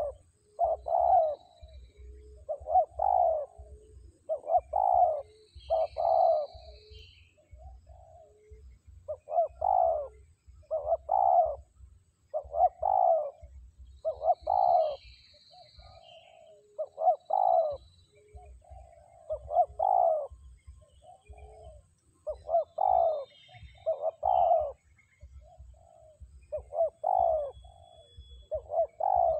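Spotted dove cooing over and over: a low coo phrase repeated about every one to two seconds, with a few faint high chirps of small birds behind it.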